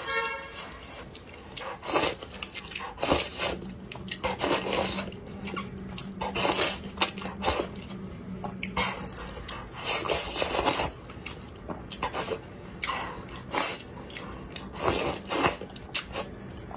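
Close-miked slurping and chewing of hand-made wide noodles in a spicy chili-oil broth, in a string of short, wet slurps with pauses between them.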